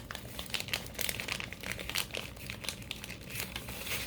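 Packaging crinkling and crackling in a rapid, irregular run of small crackles as a pack of incense sticks is opened and handled.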